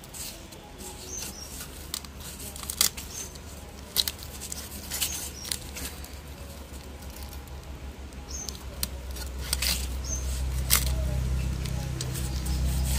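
Irregular sharp clicks and taps of a snakehead fish being cut up with a blade. A low hum grows louder from about ten seconds in.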